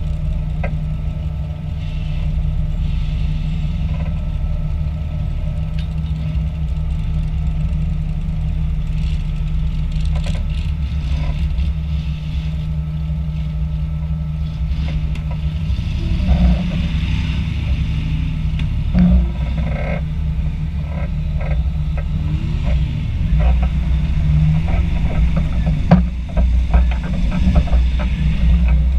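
Jeep engine running steadily at low speed, heard up close from the hood, with a low, even drone. From about halfway on, irregular knocks and rattles come through as the Jeep rolls over rough ground.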